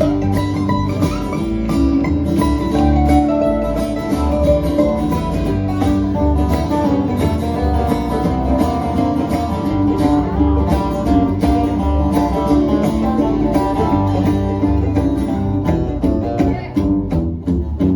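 Instrumental break in a country-gospel song: plucked string instruments led by guitar, in a bluegrass style, playing with a steady beat and no singing.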